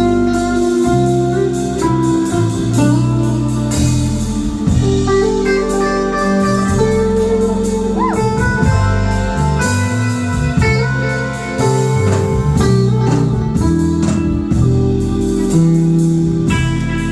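Live band playing a slow groove, an electric guitar over held chords and a moving bass line, with a bent guitar note about eight seconds in.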